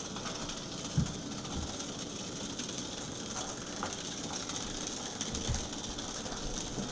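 Hexbug Nano vibrating robot bug toys buzzing and rattling as they skitter over a hard floor. Two short low thumps come about a second in and again about five and a half seconds in.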